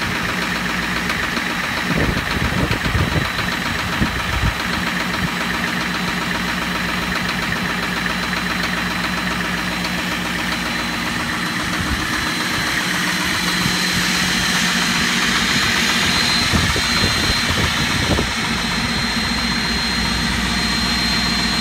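Ford 7.3-litre diesel engine idling steadily, still cold from a hard start on weak batteries. A few louder knocks come about two to four seconds in and again around sixteen seconds, and a thin high whine builds from about halfway. The sound gets a little louder near the end, heard close to the tailpipe.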